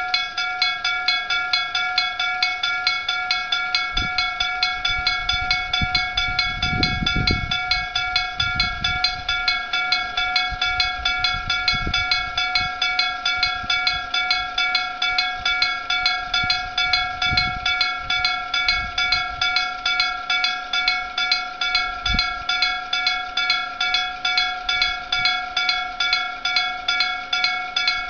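Electric gong-type level-crossing warning bell struck again and again at a quick, even rate, each stroke ringing with several clear metallic pitches: the crossing's warning that a train is approaching. Low rumbles and a faint steady hum join underneath from about a third of the way in, from the approaching freight train.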